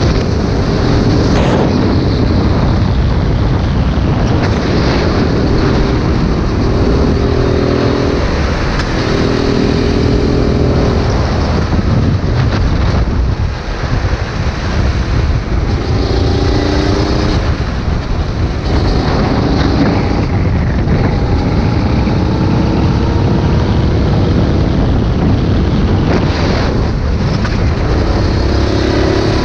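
Go-kart engine heard from onboard the kart, with wind buffeting the microphone. Its pitch climbs as the kart accelerates down the straights and dips briefly about halfway through as it slows for a corner.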